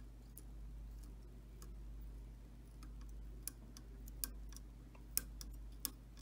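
Faint, irregular ticks from a fly-tying bobbin and thread being worked around a hook shank in a vise, over a low steady hum.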